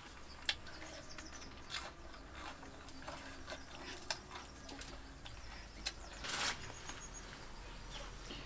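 Quiet handling sounds of food and utensils being worked by hand: scattered small clicks and taps, with a brief rustle about six seconds in.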